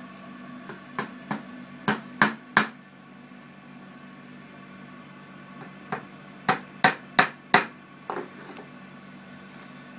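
Small hammer tapping on a wooden beehive frame: a run of about five quick taps about a second in, then a second run of about five taps around six seconds in. A steady low hum runs underneath.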